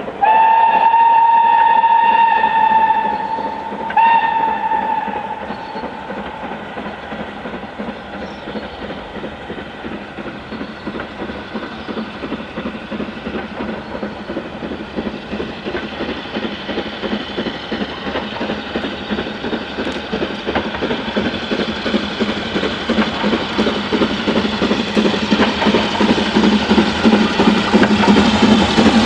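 Steam whistle of BR Standard Class 4 2-6-4 tank locomotive 80097: one long blast of about three seconds, then a shorter one. The engine then works its passenger train towards the listener, its quick exhaust beats growing steadily louder with the run of the train.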